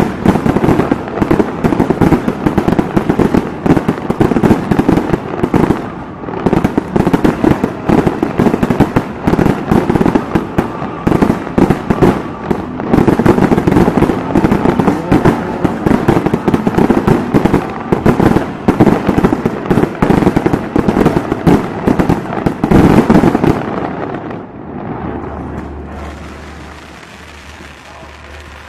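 Fireworks display going off at close range: a dense, continuous barrage of bangs and crackling. It dies away about 24 seconds in, leaving only faint, sparse pops.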